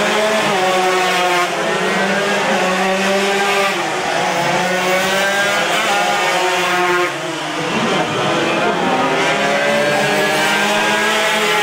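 Yamaha RX-King two-stroke single-cylinder racing motorcycles running hard, their pitch climbing and dropping back several times as they change gear.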